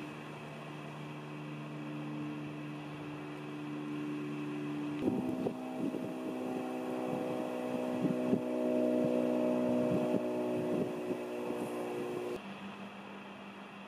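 A steady mechanical hum made of several held tones. About five seconds in it becomes louder, with higher tones and scattered clicks, and it cuts off suddenly near the end.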